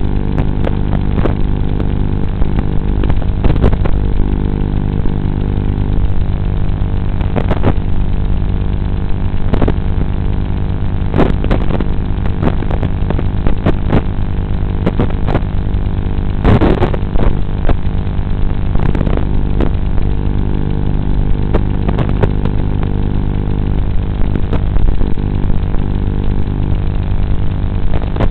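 Steady electronic buzz made of unchanging tones with a faint repeating pulse, broken by irregular crackles and clicks, the largest about two-thirds of the way through: the audio of an analog FPV video receiver's recording, crackling where the video signal breaks up.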